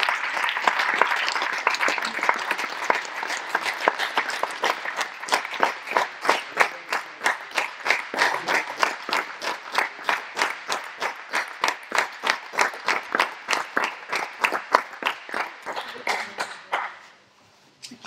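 Audience applauding. The applause is dense at first, then thins into fewer, evenly spaced claps, and dies away about a second before the end.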